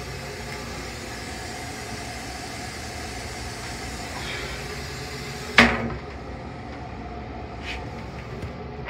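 Steady running rumble of a Long Island Rail Road M3 electric railcar, heard inside its small stainless-steel restroom. One sharp clunk comes a little past halfway, after which the high hiss drops away, and a faint click follows near the end.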